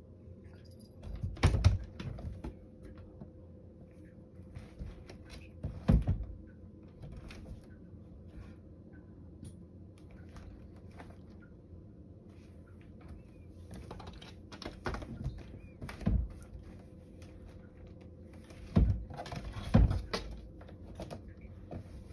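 A cat climbing a wooden shoji door and pushing into a small opening in its paper panel: five loud knocks and thumps against the wooden frame, the last two close together near the end, with light scraping and rattling of the door in between.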